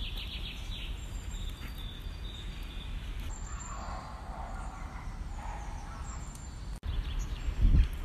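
Outdoor ambience: a steady low rumble of wind on a phone microphone with faint bird calls. The sound cuts out for an instant just before seven seconds in, and a loud low thump follows near the end.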